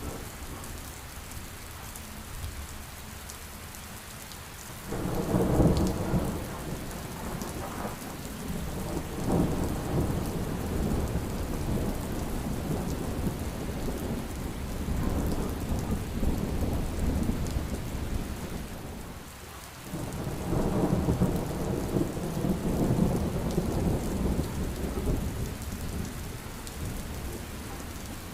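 Heavy rain falling steadily, with rolling thunder: a low rumble swells up about five seconds in, rolls on and off, fades briefly, and builds again about twenty seconds in.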